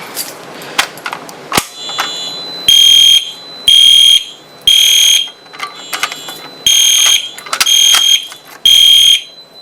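Fire alarm horn strobes, including a Wheelock MT set to code-3 tone, sounding in the temporal pattern after a pull station is key-activated: three loud, high-pitched half-second blasts, a pause, then three more. A couple of sharp mechanical clicks come before the horns start.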